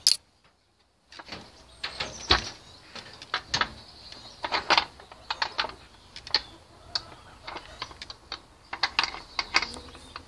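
Irregular mechanical clicks, knocks and rattles. A sharp click right at the start is followed by about a second of near silence.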